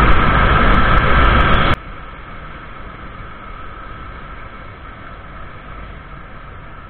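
Motorcycle riding noise, wind on the rider's microphone mixed with the engine. It is loud for nearly two seconds, then drops suddenly to a much quieter steady hum.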